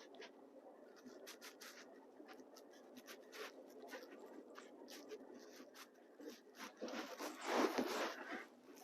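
Pickup truck driving on an icy dirt road: faint, steady road noise with scattered small clicks and crackles from the tyres. About seven seconds in comes a louder, rough crunching of a second or so as the tyres slide on the slick surface.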